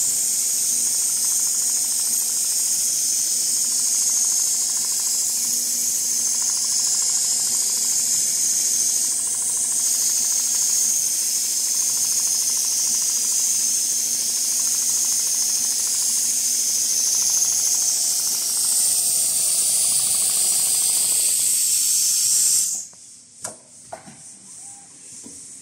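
A CNC pattern sewing machine running, heard as a loud, steady high-pitched hiss with no clear stitch rhythm. About 23 seconds in the hiss cuts off suddenly, leaving a few faint clicks.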